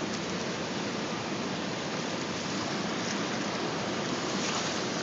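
Fast, churning river current below a dam spillway, rushing steadily.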